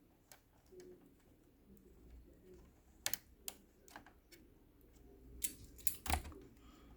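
Scattered sharp plastic clicks and small snaps as a laptop's plastic parts and clips are handled and pulled apart during disassembly. The loudest snap comes a little after six seconds in.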